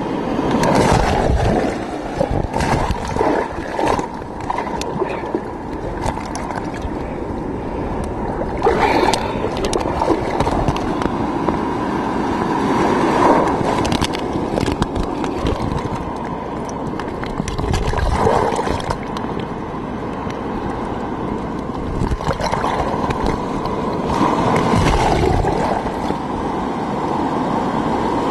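Rough storm surf sloshing and gurgling around a camera held at the waterline, swelling louder every few seconds as waves break and wash over it; the sound turns muffled when the water covers the microphone.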